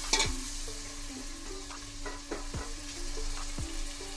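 Chopped tomatoes and spices sizzling in hot oil in a steel pot, stirred with a steel ladle that scrapes against the pot a few times in short, sharp strokes.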